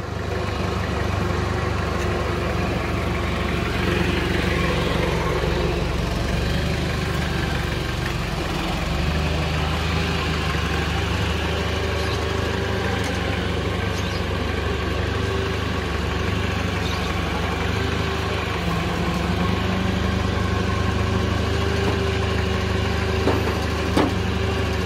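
A vehicle engine idling steadily. Near the end come two light knocks, as wooden blocks are set down on the truck's bed.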